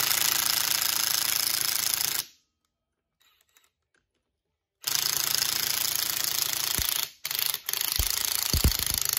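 Ryobi half-inch-drive cordless impact wrench hammering on the pinion nut of a Ford 7.25-inch rear differential, trying to break it loose. A burst of about two seconds, a pause of about two and a half seconds, then a longer run of hammering broken twice by brief stops, with a few low thuds near the end.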